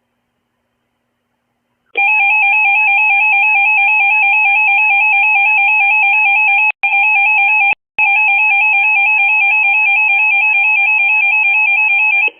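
Emergency Alert System two-tone attention signal: a loud, harsh steady tone pair with a fast flutter, starting about two seconds in and holding for about ten seconds, cut out briefly twice near the middle. It announces an emergency alert.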